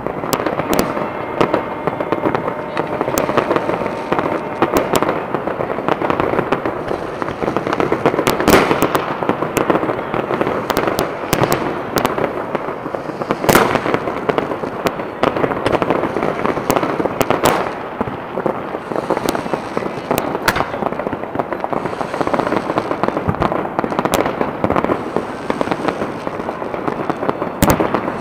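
Fireworks going off without pause: a dense din of crackling and bangs, with many sharp single bangs standing out, the loudest about eight and a half and thirteen and a half seconds in.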